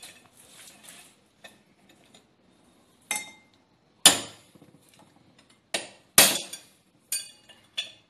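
Hammer blows on a steel drift set inside a Volkswagen Gol rear brake drum hub, driving out the old tapered roller bearing's outer race: about six sharp metallic strikes with a short ring after each, the loudest about four and six seconds in.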